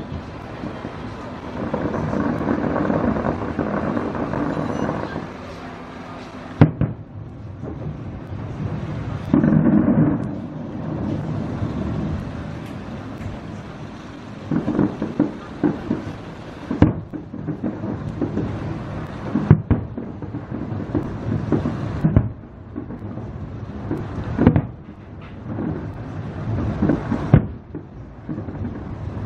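Aerial fireworks shells bursting: a series of sharp bangs every few seconds, with stretches of rumble and crackling between them.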